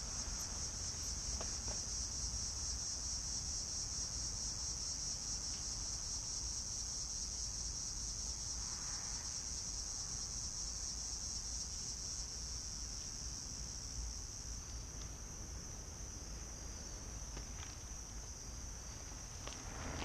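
Steady, high-pitched chorus of crickets. Near the end, a mountain bike's tyres crunch past on the gravel.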